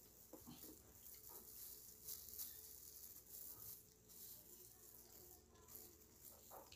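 Quiet eating sounds: chewing, small mouth clicks and plastic-gloved hands picking at food, over a faint steady hum.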